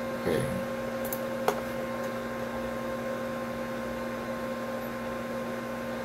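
Steady electrical hum in the recording, with one sharp click about a second and a half in.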